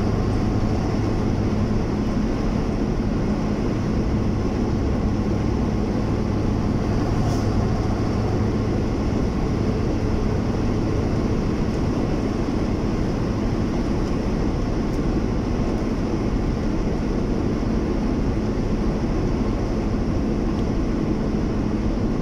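Engine and road noise of a vehicle driving steadily along a highway. A low engine hum is strongest in the first half and eases about halfway through.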